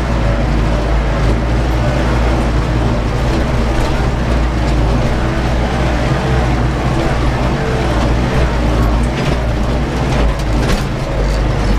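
Ursus 914 tractor's diesel engine running steadily under heavy load while pulling a disc harrow through fallow ground, heard from inside the cab. A few sharp knocks and rattles come through near the end.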